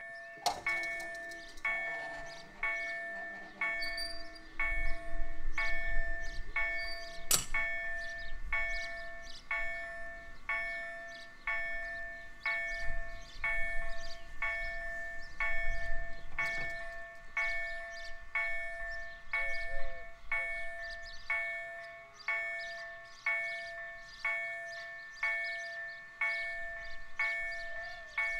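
Level-crossing warning bell striking about once a second, each ding fading before the next. For the first half a steady motor hum runs under it as the barrier booms lower across the road, with a sharp knock about seven seconds in.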